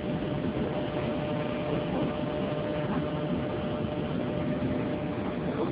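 Steady background noise of an underground subway platform: an even rumble and hiss with a faint steady hum.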